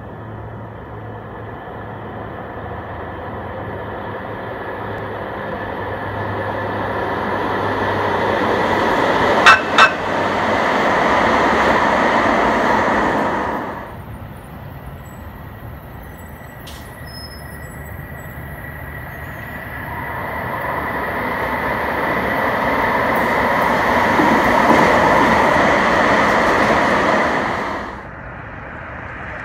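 Alstom Citadis light-rail trains passing on a test run: the running noise of the train grows steadily louder as it approaches, then breaks off, and a second train builds up the same way and breaks off near the end. During the first pass there are two short, sharp sounds in quick succession.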